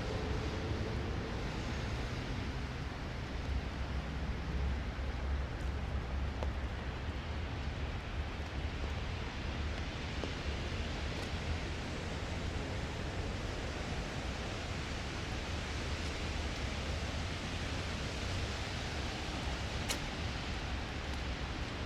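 Steady rain falling, an even hiss with a constant low rumble underneath.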